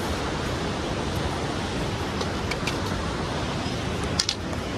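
Steady rushing outdoor noise, with a few faint clicks midway and a sharper pair near the end.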